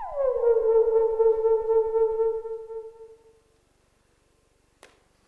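Electronic synthesizer tone played through a haptic stylus controller. It slides down in pitch by about an octave, holds the lower note, and fades out about three seconds in. A single faint click comes near the end.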